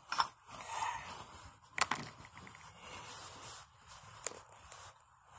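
Phone handling noise close to the microphone: soft rustling with three sharp clicks.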